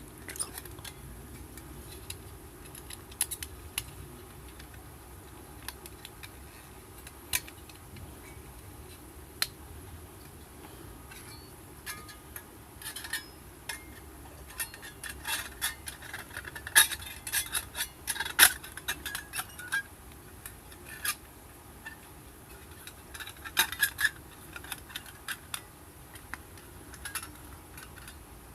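Irregular light clicks and clinks of small hard objects being handled. They come sparsely at first, then in a busier run through the middle and again near the end.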